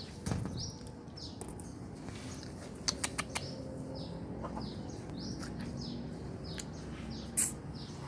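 Young cage bird giving short, repeated chirps, each falling slightly in pitch, about a dozen in all, heard after it has got over 'ngorok', a rattling respiratory illness. A few sharp clicks come about three seconds in, and a louder click comes near the end.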